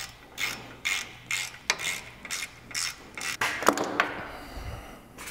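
A hand wrench working a nut loose on a tractor's hydraulic fitting bracket: a run of short metallic clicks and scrapes, about two a second, that tails off near the end.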